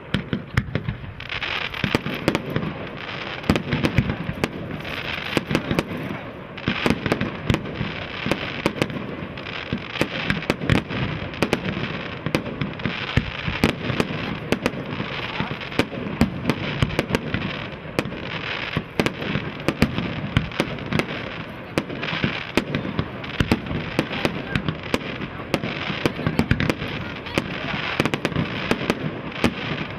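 Fireworks display going off continuously: a dense run of bangs and rapid crackling, many reports a second with no pause.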